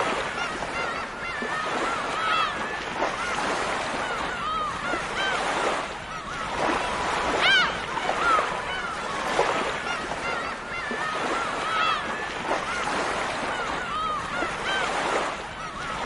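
A flock of gulls calling over and over, short arched cries overlapping one another, over the steady wash of surf.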